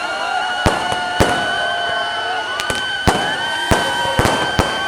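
Firecrackers packed in a burning Ravan effigy going off in an irregular string of about eight sharp bangs. Under the bangs runs a steady high whistling tone that slowly rises a little in pitch.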